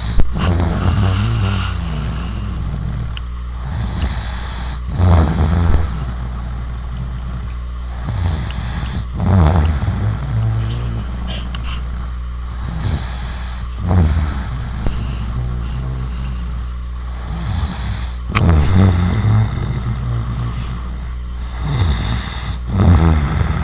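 A sleeping person snoring, about six rough snoring breaths, one roughly every four seconds, over a steady low hum.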